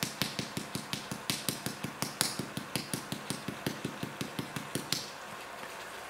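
Hand-held caraway spice jar worked over the pot: a quick, even series of sharp clicks, about six a second, which stops about five seconds in.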